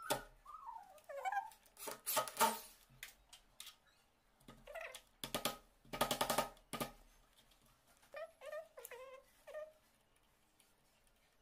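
Electric drill driving the escutcheon screws of a mortise lock cylinder in two short runs, one about 2 s in and a longer one about 5 s in. Between them a cat meows several times, short calls that fall in pitch.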